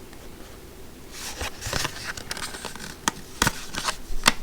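Solder spools and their packaging being handled: rustling and scraping, with several sharp plastic clicks in the second half.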